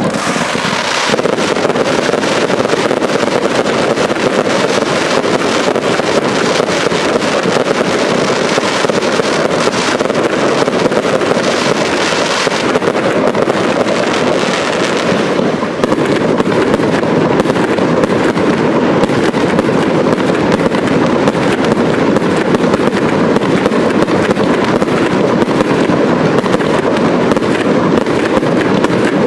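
Large fireworks display: aerial shells and rising comets going off in a dense, continuous barrage of bangs.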